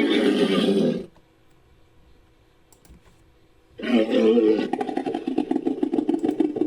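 Edaphosaurus creature sound effect, mixed from animal recordings: a low pitched roaring call ends about a second in. After a pause, a second long call starts near the middle and turns into a rapid pulsing rattle.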